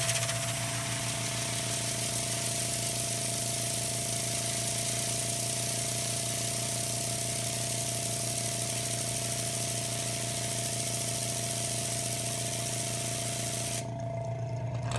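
Small air compressor running with a steady hum while compressed air hisses out of its nozzle onto a bladed fidget spinner to spin it up. About a second before the end the air blast stops and the motor hum carries on.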